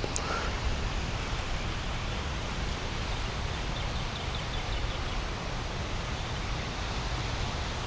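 Steady wind buffeting the microphone, a low rumble with an even hiss over it. There is a faint click at the start and a few faint high chirps about four seconds in.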